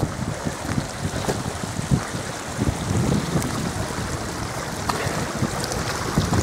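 Wind buffeting the microphone in uneven gusts over a steady rushing hiss.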